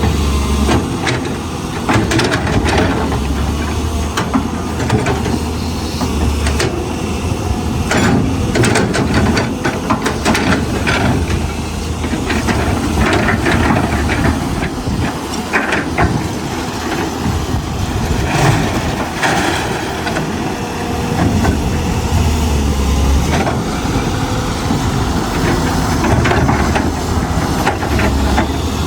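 Excavator at work: its engine runs steadily, swelling at times, with scattered clanks and knocks and a hiss.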